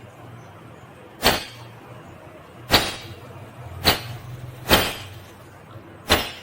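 Indian ringneck parakeet giving five short, sharp squawks, about one every second or so.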